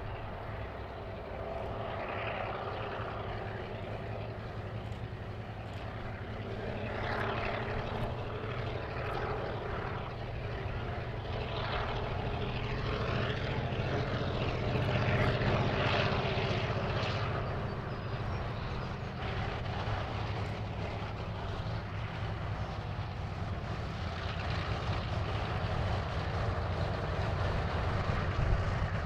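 Victorian Railways Y class diesel locomotive approaching under power, a steady low engine drone that grows gradually louder as it nears.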